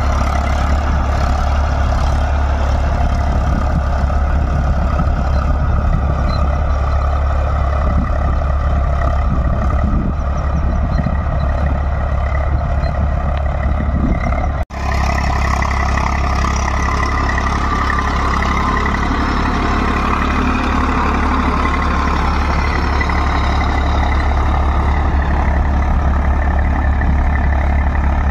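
Eicher 380 tractor's diesel engine running steadily under load while pulling a rotavator through the soil. The sound cuts out for an instant about halfway through, then resumes.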